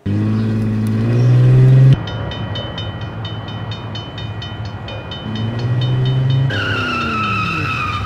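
Train and level-crossing sounds. A train horn sounds for about two seconds, then a crossing bell rings rapidly over the rumble of a passing train. Another horn blast follows, and near the end a higher tone falls slowly in pitch.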